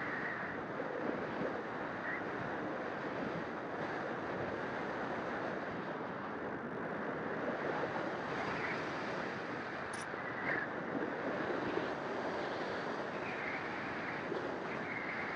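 Steady rush of wind over the onboard camera of an FPV model aircraft in flight, heard as even noise without a clear motor tone. A brief high tick comes about ten seconds in.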